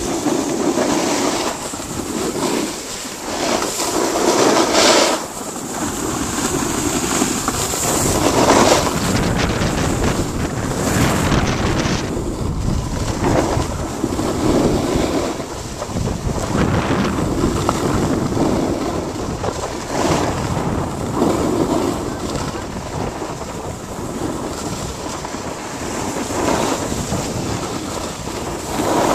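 Wind buffeting the microphone over the hiss and scrape of edges sliding on packed snow, swelling and easing every second or two with the turns.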